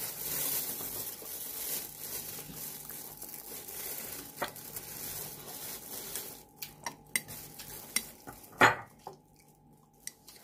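A steady hiss, then a metal spoon clinking and scraping against a glass jar of soft spread in a string of sharp clicks over the last few seconds, the loudest clink about three-quarters of the way through.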